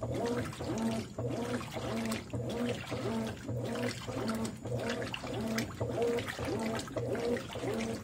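Consul 13 kg top-load washing machine (CWE13AB) agitating a full load: the motor hums in back-and-forth strokes, its pitch rising and falling and pausing briefly about once a second as the agitator reverses, with water sloshing around the clothes.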